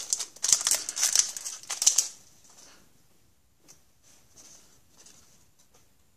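Hockey card pack wrapper crinkling in the hands for about two seconds, followed by faint rustles of the cards being handled.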